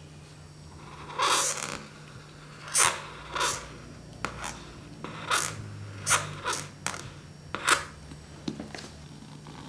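Felt-tip marker drawing on a large sheet of paper: a string of short scratchy strokes, some with a slight squeak, coming in irregular bursts as lines, small circles and a spiral are drawn, over a faint steady hum.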